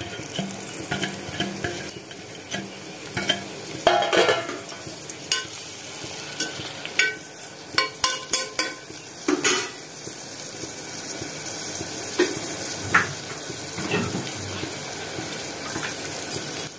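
Chopped onions sizzling in hot oil in an aluminium pressure cooker, with a metal slotted spoon knocking and scraping against the pot through roughly the first ten seconds. After that a steadier frying hiss carries on with only a few knocks.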